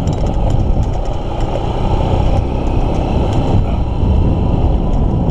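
Honda XR150L motorcycle underway on a muddy dirt lane: its single-cylinder four-stroke engine running under a steady rush of wind and road noise.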